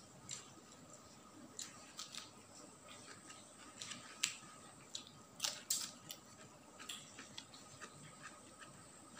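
Faint eating sounds by hand: scattered wet clicks and smacks of chewing and of fingers pulling apart grilled mackerel tuna and rice, louder a few times around the middle.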